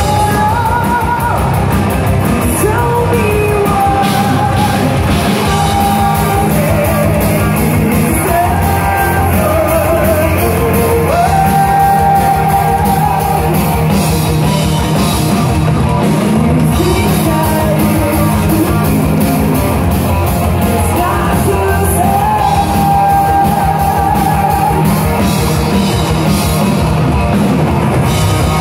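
Power metal band playing live at full volume, heard from within the crowd: a female singer holds long, high sung notes over distorted guitars and fast, dense drumming.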